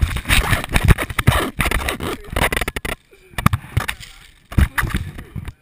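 Handling noise from a microphone inside a volleyball with a GoPro camera mounted in it: hands and skin rubbing and scraping on the ball's shell, with sharp knocks as it is caught and hit. The scraping is dense for the first few seconds, then gives way to separate knocks.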